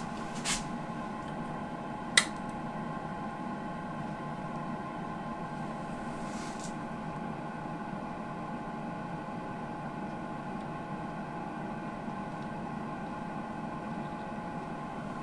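Steady workshop machine hum with a few light clicks at the start and one sharper click about two seconds in.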